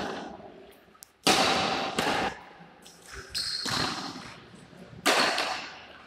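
Badminton play in an echoing indoor hall: three loud, sudden hits, each followed by a fading echo.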